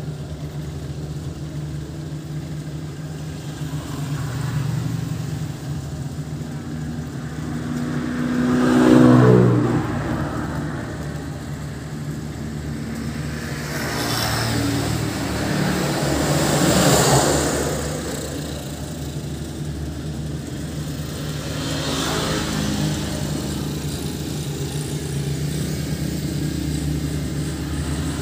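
Rice harvesting machine engine running steadily, swelling louder several times, most strongly about a third of the way in and again past the middle.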